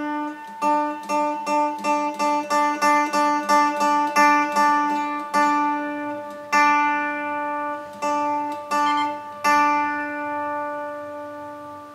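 A single hammered dulcimer string plucked with a fingernail while it is brought back into tune on its tuning pin. It is plucked quickly, about twice a second, for the first few seconds, then a few more times more slowly, each note left to ring and fade.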